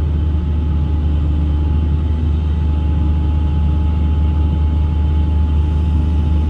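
Hitachi long-reach excavator's diesel engine running steadily under hydraulic load as the boom is lowered, with a faint steady whine above the low drone.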